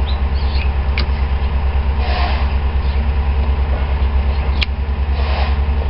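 Steady low mechanical hum, with a Zippo lighter struck over and over without catching: two sharp clicks and two short scratchy rasps. The lighter won't light because its flint is worn out.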